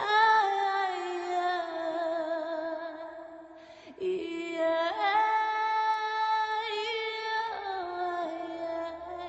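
Music with a wordless female voice holding long notes, each with a slight waver, in two phrases; the second begins about four seconds in.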